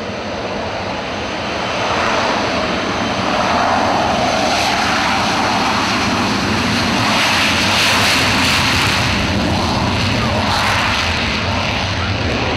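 Hawker Siddeley Nimrod's four Rolls-Royce Spey turbofan engines at take-off power as the aircraft runs down the runway and lifts off near the end. A steady jet roar that grows louder over the first few seconds as it comes past.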